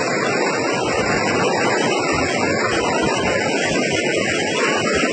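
A car driving through a flooded street, with a steady rush of water churned up by the tyres.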